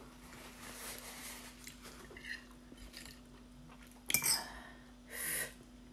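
A metal spoon clinking and scraping against oyster shells on a plate, with a sharp clink about four seconds in and a few more about a second later. Quieter rustling comes before, over a faint steady hum.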